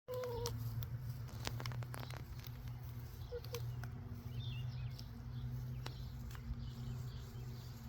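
Chickens pecking at apples, a run of sharp little pecking clicks, with a few short soft chicken calls, over a steady low hum.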